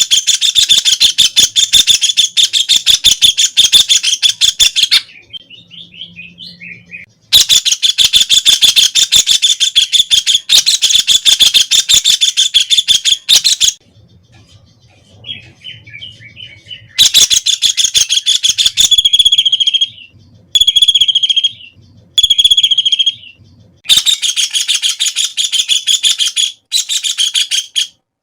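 White-throated kingfisher calling: long, rapid rattling chatters lasting several seconds each, broken by short pauses, with a spell of shorter separate notes in the middle.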